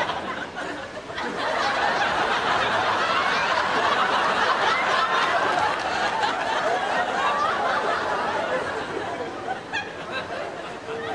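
Studio audience laughing, a continuous wash of many voices that eases off somewhat near the end.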